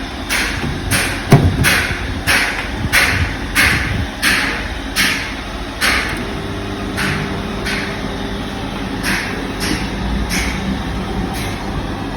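A microwave oven starts running about six seconds in, with a steady hum. Before that comes a sharp knock about a second in, and short hissing ticks repeat about twice a second, fading once the hum begins.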